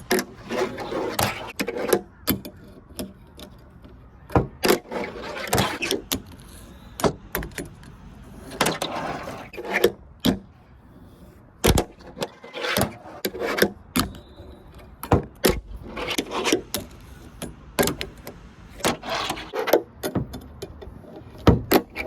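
Fingerboard being skated: the small wheels roll in stretches of rolling noise, broken by many sharp clacks as the deck pops and lands.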